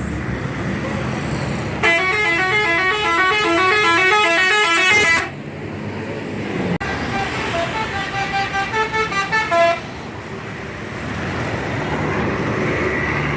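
Bus 'telolet' horn playing a quick stepping multi-note tune for about three seconds, then after a short pause a second run of telolet notes, choppier, for about three seconds, over street traffic noise.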